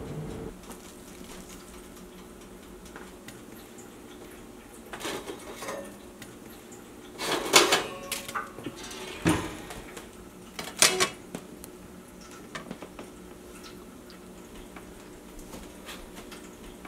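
Dishes and cutlery being handled: a few separate clinks and clatters over a quiet background, the loudest about halfway through, with a couple more knocks shortly after.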